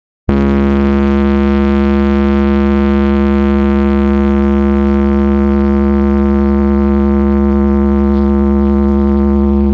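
Blizzard Audio carnival sound system playing one loud, steady, buzzy drone note with heavy bass, held unchanging for about nine seconds after starting abruptly.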